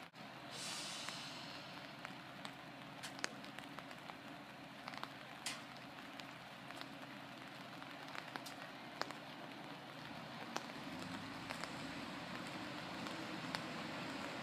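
Light rain pattering, with scattered small ticks over a faint steady hiss and a brief hiss about half a second in. From about ten seconds in, a low rumble builds as a Sanriku Railway diesel railcar approaches.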